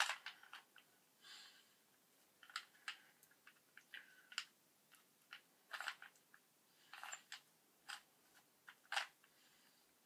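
Plastic Rubik's cube layers being twisted by hand: irregular clicks and short scrapes.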